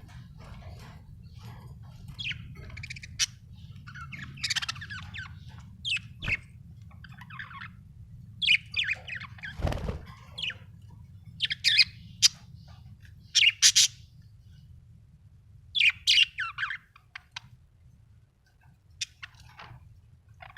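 Budgerigar chirping in short, irregular bursts of high chirps and squawks. A steady low hum sits underneath and stops near the end, and there is a single thump about halfway through.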